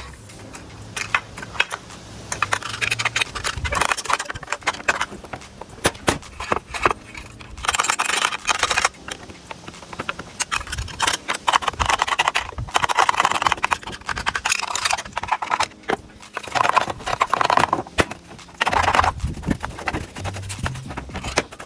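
Packed sawdust build-up being scraped and brushed out of a circular saw's blade housing: scratchy scraping in several spells of a second or two, with sharp clicks and knocks between.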